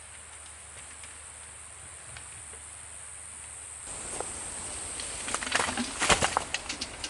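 Faint steady outdoor hiss, then from about four seconds in a run of rustles and sharp clicks, thickest and loudest about six seconds in.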